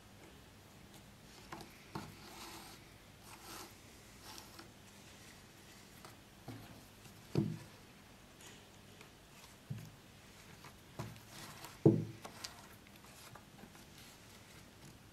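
Hand-stitching a sword scabbard: thread drawn through the work with a soft rubbing rasp, and several low knocks of the work against the wooden bench, the loudest about twelve seconds in.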